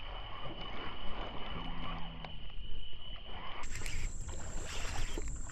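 Steady high-pitched insect drone over a low rumble, with a few faint ticks; the drone jumps to a higher pitch about three and a half seconds in.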